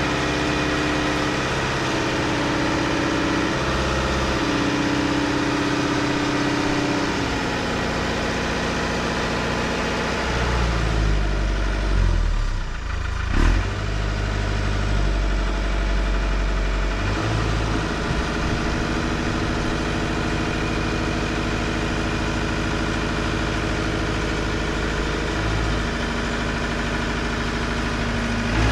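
Mahindra 1538 compact tractor's diesel engine running steadily. Its pitch dips and its low rumble swells for a few seconds around the middle, as if taking on load, then it settles back to an even run.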